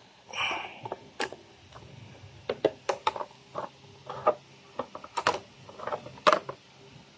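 Hard plastic clicking and knocking as the CVT air filter element is worked out of its plastic housing in the scooter's belt cover. A short scrape comes just after the start, then a dozen or so separate clicks.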